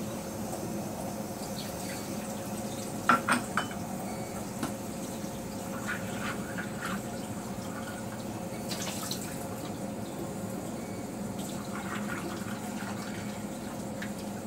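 Kitchen tap running into a sink while a ceramic bowl is rinsed under it. Three sharp clinks of crockery come about three seconds in, with lighter knocks later.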